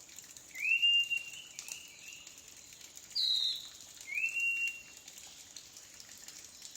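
Small forest birds calling: a short whistled note that rises and then holds steady comes three times, a few seconds apart, and a higher note slides down once in between.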